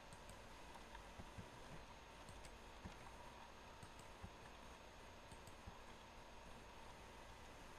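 Near silence with faint, irregular computer mouse clicks, a few seconds apart.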